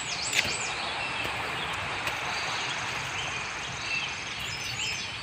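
Outdoor garden ambience: birds chirping high and sweeping, loudest near the start and again near the end, over a steady background hiss with a faint high rapid trill.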